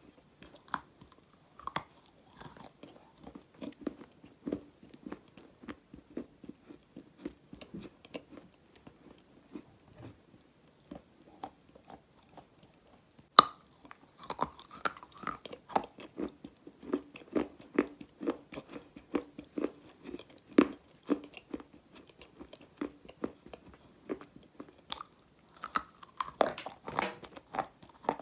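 Dry black edible clay being bitten and chewed close to the microphone: a steady run of crisp crunching and crackling, with one sharp loud bite about halfway and busier crunching after it and again near the end.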